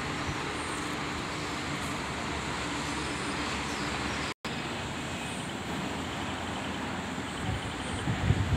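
Steady distant highway traffic noise from cars, buses and trucks on the road below. The sound drops out completely for a moment about halfway, and near the end low gusts of wind buffet the microphone.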